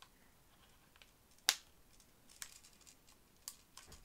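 Small clicks of a Sony A6000 mirrorless camera body being handled while a part is fitted onto it: one sharp click about a second and a half in, then a few fainter clicks.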